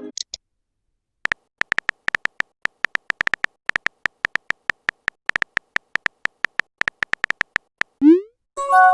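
A rapid, irregular string of short synthesized beeps, all on one high pitch, starting about a second in. Near the end a quick rising synth sweep is followed by a held synth chord.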